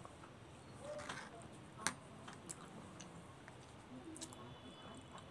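Close-miked chewing of instant noodles, soft wet mouth sounds broken by a few sharp clicks, the loudest about two seconds in.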